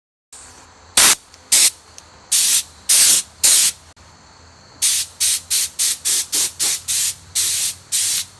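Hand-sanding strokes on cured Bondo over a fiberglass tractor fender: a run of short, loud rasping strokes, a few spaced ones at first, then about two to three a second from about halfway in.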